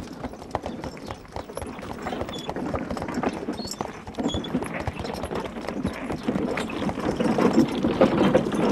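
Hooves of walking horses clopping steadily, growing louder toward the end.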